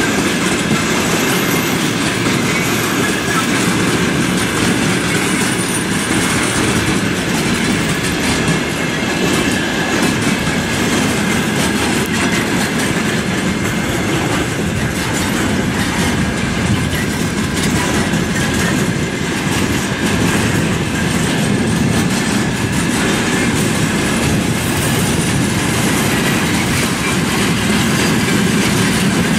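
Container flatcars of a freight train rolling past, the wheels clattering over rail joints in a steady, continuous rumble.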